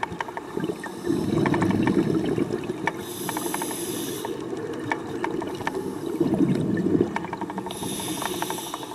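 Scuba regulator breathing underwater: a low rushing stream of exhaled bubbles, then the high hiss of an inhalation, twice over, with light clicking and crackling throughout.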